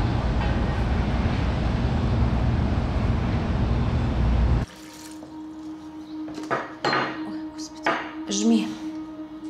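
A loud, even rushing noise that cuts off abruptly about four and a half seconds in. Then kitchen sounds follow: dishes and cutlery clink a few times over a steady hum.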